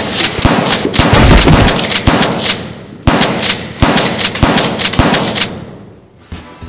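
Rapid automatic gunfire sound effect, about four sharp shots a second with ringing after each. There is a short break a little before three seconds in, then a second run that dies away near the end.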